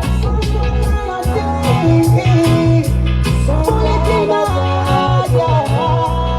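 Dancehall reggae track playing loudly, with a heavy bassline, a steady beat and a melodic line; a sung vocal comes and goes.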